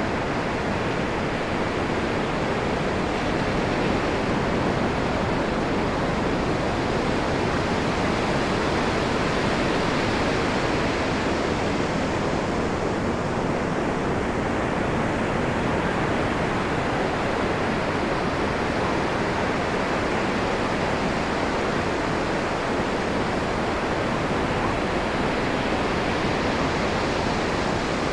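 Ocean surf: a steady wash of breaking waves that swells twice, as waves break and run up the beach.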